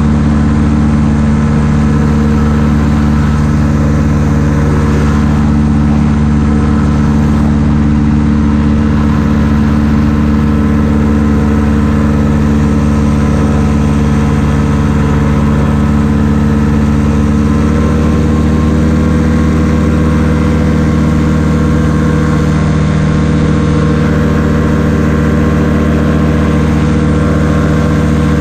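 Hirth F-23 two-stroke flat-twin engine of a Quicksilver MX Sport ultralight running steadily in flight, its pitch stepping up slightly about two-thirds of the way through.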